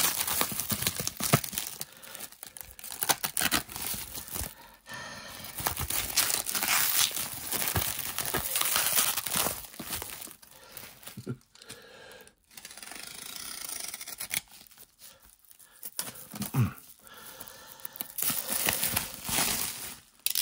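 Thin black plastic wrapping being torn open and crumpled by hand around a cardboard box, in irregular bursts of tearing and crinkling with a few short pauses.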